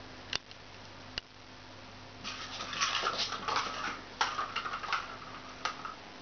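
A cat's paws and claws scrabbling and skittering on a laminate floor as it dashes about: two sharp clicks, then from about two seconds in some three seconds of dense scratchy patter.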